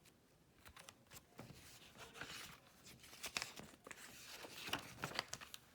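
Paper rustling and crinkling, with a run of short sharp clicks, as the pages of a picture book are handled and turned; the rustling grows busier about two seconds in.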